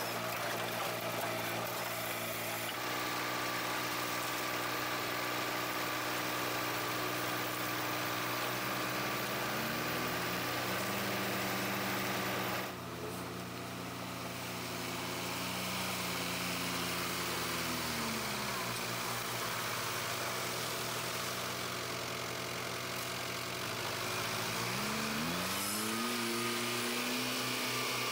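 Engine of a firewood-processing machine running steadily, its pitch dipping and rising again several times as it takes load. The sound changes abruptly about halfway through.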